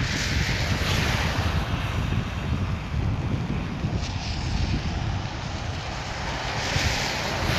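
Wind buffeting the phone's microphone over the steady rushing hiss of a twin-engine turboprop airliner's engines as it taxis away; the hiss swells near the start and again near the end.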